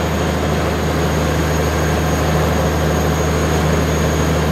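Excavator's Cummins diesel engine, from a machine that had been sitting abandoned, running steadily at an even speed.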